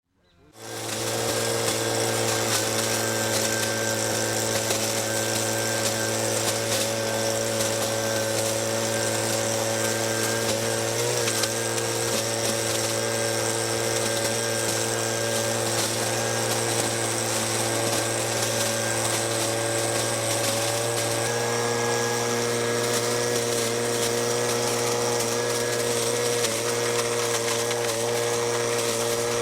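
Stihl SH 86 blower-vacuum's small two-stroke engine and fan running steadily at constant speed, cutting in suddenly at the start.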